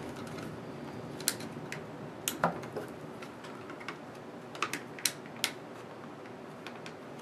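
A handful of sharp, irregular clicks and taps from a thin metal screwdriver and stick prying at the glued seam of an unpainted plastic toy raygun body.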